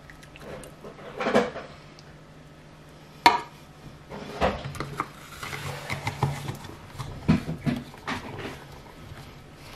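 Hard plastic knocks as a measuring jug is set down and the NutriBullet blade base is picked up. This is followed by a run of small clicks and rubbing as the blade base is twisted onto the fruit-filled cup.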